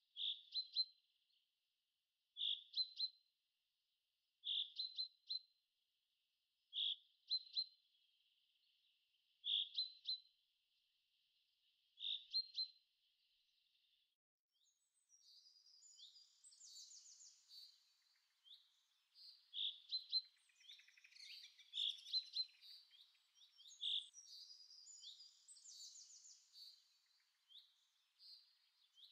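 Birdsong: one bird repeats a short call of a few quick notes about every two and a half seconds. About halfway through, several birds join in with overlapping calls and higher trills.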